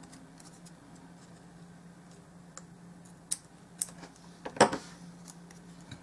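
Small craft scissors snipping a paper strip, a few sparse light clicks, with one louder knock about four and a half seconds in.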